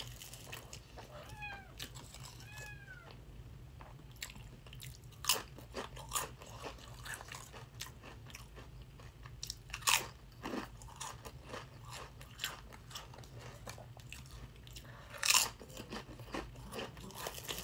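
Crunching bites and chewing of Sun Chips, with a few sharp, loud crunches spaced several seconds apart among quieter chewing.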